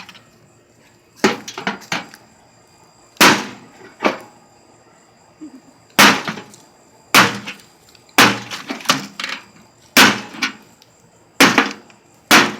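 A microwave oven being smashed with hammers and an axe: about a dozen loud, sharp blows at an uneven pace of roughly one a second.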